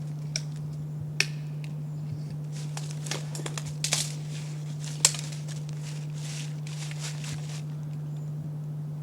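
Scattered rustles and a few sharp clicks from movement and handling of gear, the loudest click about five seconds in, over a steady low hum.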